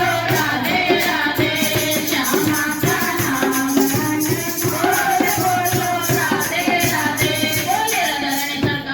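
Hindi devotional bhajan being sung, the voice carried over a steady rhythm of jingling, shaken hand percussion.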